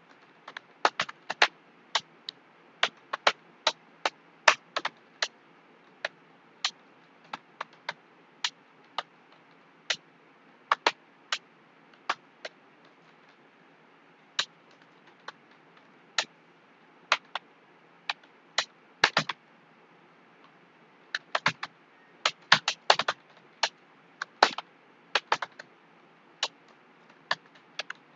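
Computer keyboard being typed on at an uneven pace during a timed typing test. Single sharp key clicks come with short gaps between them, with a quicker flurry of keystrokes about three-quarters of the way through.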